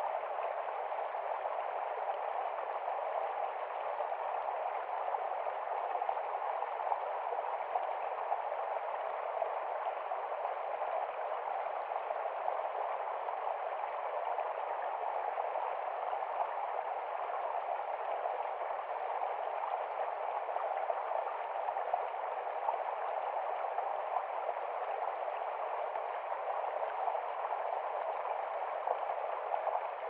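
Shallow stream running over rocks, a steady babble of water.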